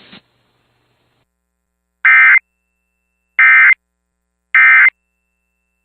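Emergency Alert System end-of-message signal: three short, loud, identical bursts of SAME digital data tones about a second apart. They mark the end of the alert broadcast.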